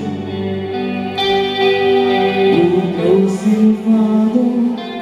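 Live rock band playing: electric guitars over bass guitar and drums, with held guitar chords and notes.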